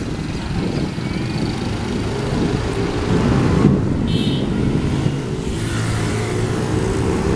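Road traffic: a motor vehicle running close by, its engine note climbing steadily through the second half as it accelerates.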